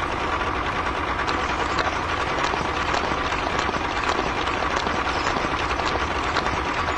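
A vehicle engine running steadily, with many small clicks over it.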